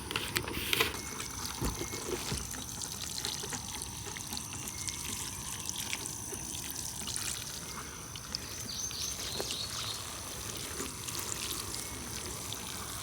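Water pouring and trickling onto plants and soil during watering, a steady fine patter of drops with a few sharper splashes in the first second.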